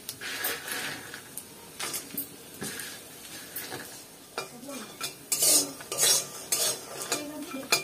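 Dried lentil dumplings (dal bori) sizzling as they fry in oil in a metal wok, with a metal spatula scraping and clinking against the pan as they are stirred. The strongest scrapes come a little past five seconds and around six seconds in.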